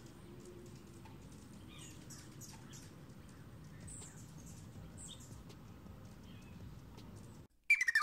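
Hummingbirds giving faint, scattered high chips and squeaky chirps around nectar feeders over a low background hum. Near the end it cuts to silence, then guitar music starts.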